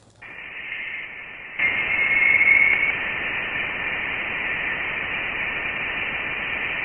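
Voyager 1 plasma wave instrument data from interstellar space played back as sound: a steady hiss with a whistling tone about a second and a half in. The tones are plasma vibrations stirred up by solar eruptions, and they confirm the spacecraft is in interstellar space.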